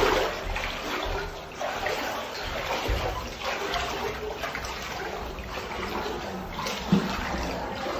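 Floodwater inside a house sloshing and splashing around someone wading through it, continuous and uneven. A brief louder thump near the end.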